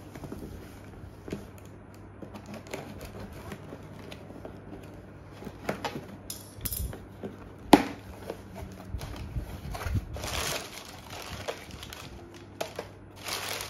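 Scissors cutting and tearing packing tape on a cardboard box, with scattered clicks and scrapes of the cardboard and one sharp crack about eight seconds in. Near the end, the rustle of crumpled paper packing being pulled about inside the opened box.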